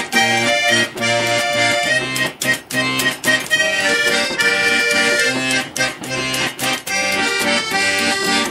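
Instrumental interlude on a garmon (Russian button accordion): a folk tune with sustained chords over a rhythmic bass accompaniment.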